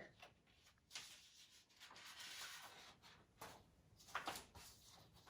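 Near silence: room tone with a few faint clicks and a brief soft rustle.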